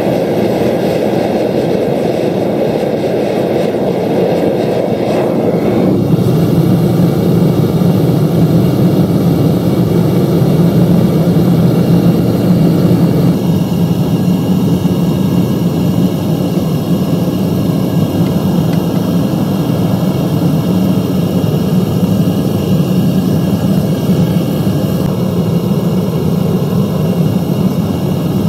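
Gas burner of a Devil Forge melting furnace running at full blast, a loud, steady rushing noise that turns deeper about six seconds in.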